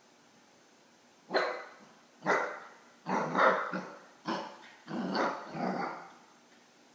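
Eight-week-old Akita puppy barking, a string of about six short barks starting about a second in, the later ones longer.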